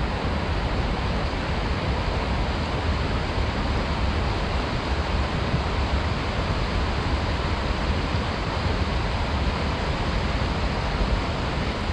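Steady, even rushing noise with a deep rumble underneath, holding level throughout. It begins abruptly and cuts off quickly at the end.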